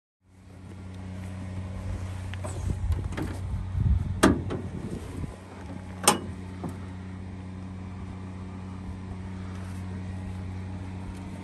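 The hood of a Dodge Sprinter van being unlatched and raised: a stretch of rumbling handling noise, then two sharp metallic clicks about four and six seconds in, over a steady low hum.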